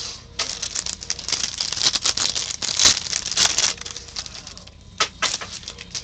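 Foil trading-card pack being torn open and crinkled: a dense crackle for about three and a half seconds, then two short rustles near the end.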